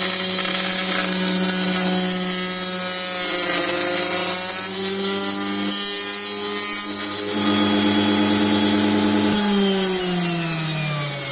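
Milling cutter running and cutting holes in an aluminium extrusion profile: a steady motor hum with a harsh cutting hiss on top. The pitch falls gradually near the end.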